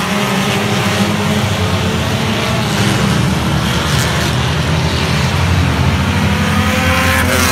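A pack of compact race cars running at racing speed around an oval, several engines going at once in a steady, loud drone.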